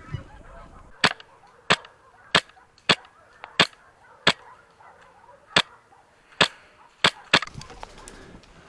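Airsoft gun firing single shots: about ten sharp cracks at an uneven pace, roughly one every half second to second, with a quick double near the end.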